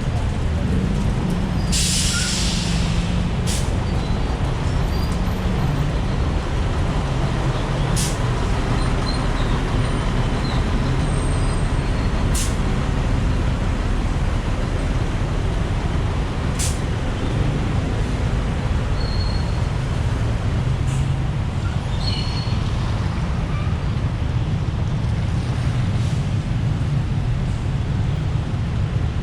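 Busy city street traffic: a steady rumble of engines and tyre noise on wet pavement, with a loud hiss about two seconds in and a few sharp clicks.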